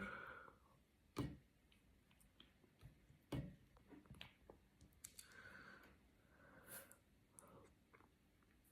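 Near silence, broken by a few soft clicks and knocks of tableware at a breakfast table, the two clearest about one and three and a half seconds in.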